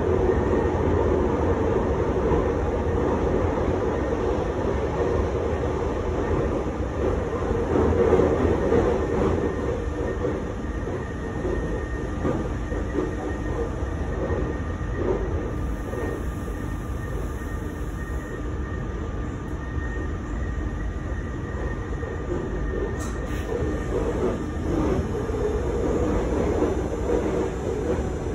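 Inside an RER D commuter train carriage running at speed: steady rumble and rattle of the wheels on the rails and the carriage, with a faint high steady whine over it. It swells slightly about eight seconds in.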